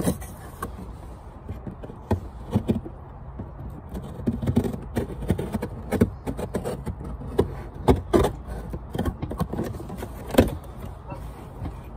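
A cardboard shipping box being cut open with a folding knife and handled: irregular scrapes, taps and rustles of the blade and hands on the cardboard and tape.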